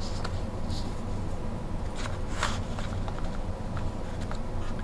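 Steady low hum with a few faint rustles and taps of paper cards being handled, the clearest about two and a half seconds in.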